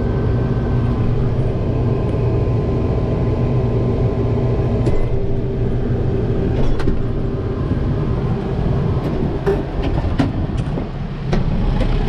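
Tractor engine running steadily, heard from inside the cab, with a few sharp clicks partway through.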